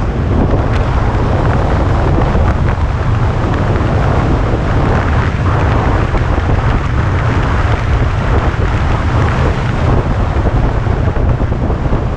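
Steady wind noise buffeting the microphone of a skier moving at speed, mixed with skis hissing and scraping over groomed snow.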